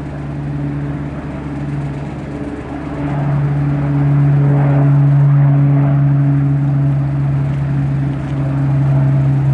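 Sikorsky UH-60M Black Hawk helicopter running on the ground during start-up, before its rotors turn: a steady, loud turbine hum that steps up in loudness about three seconds in.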